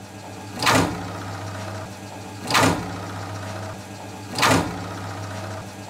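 Milling machine running with a 3/4-inch slot drill in brass. Three times, about two seconds apart, the cutter digs into the block with a short loud crash. This is the sign of a cut taken along the length of the vise, where nothing supports the work at either end.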